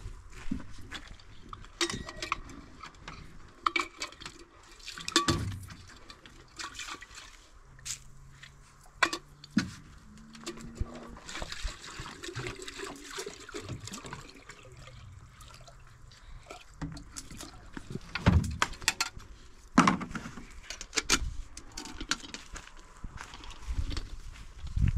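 Water poured from a plastic jerrycan into a metal kettle, with sharp clinks and knocks as the kettle and its lid are handled.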